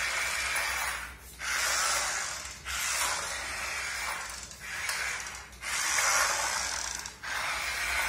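Small gear motor of a remote-control puppy scooter toy whirring and rattling as it drives and spins on a hard floor. The sound cuts out for a moment five times, each time the toy stops and starts again.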